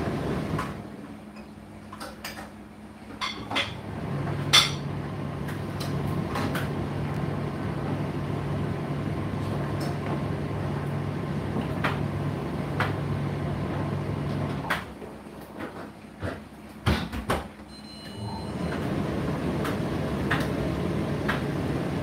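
Indesit IDC8T3 condenser tumble dryer running, its drum turning with a steady low hum while the load knocks and clicks inside. Twice the running sound drops away for a few seconds, with a few sharper knocks, before it picks up again.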